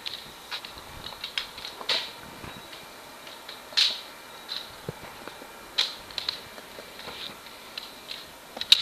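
Scattered clacks and knocks of scooter and skateboard wheels and decks on concrete ramps, with sharper hits about two, four and six seconds in and the loudest near the end.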